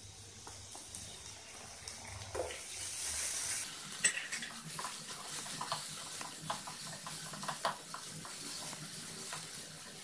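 Shredded vegetables sizzling in a hot kadai as green chilli sauce goes in, then a spatula stirs them. It scrapes and clicks against the pan many times from about four seconds in.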